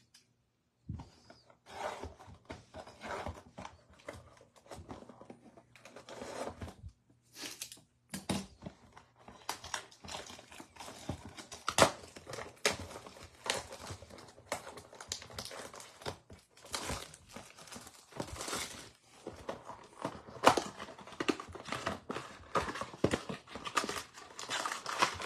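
Packaging of a Topps Heritage High baseball-card blaster box being torn open and handled: an irregular run of crinkling, tearing and rustling starting about a second in.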